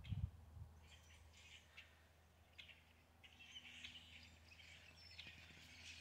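Faint chorus of distant songbirds chirping and singing, growing busier about halfway through, with a brief low bump at the very start.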